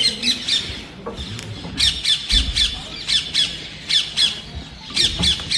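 Birds giving short, sharp, high calls, about three or four a second, in three bursts: one at the start, a longer run from about two to four seconds in, and another near the end.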